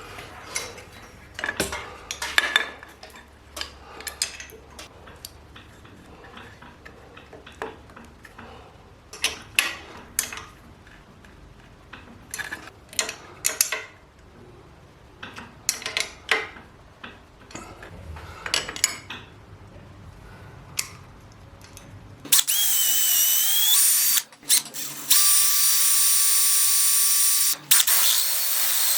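Metal tools clinking and ratcheting in scattered sharp clicks for about twenty seconds, then a power drill running loudly in several bursts with a high whine that dips in pitch briefly as it loads up.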